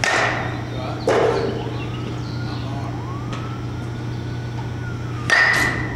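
A metal baseball bat hitting pitched balls: a sharp crack with a ringing ping right at the start and again about five seconds in. A duller thump about a second in.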